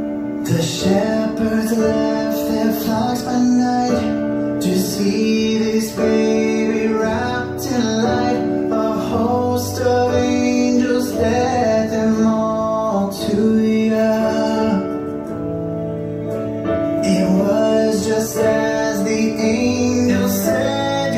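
Slow song with a woman singing over guitar accompaniment, played back as the music for a dance.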